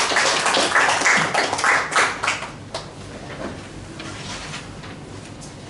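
A small audience applauding in a room, the claps thinning out and dying away about two and a half seconds in, leaving quiet room noise.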